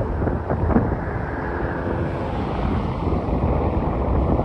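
Wind buffeting the microphone over the faint, steady drone of a light single-engine propeller plane climbing away.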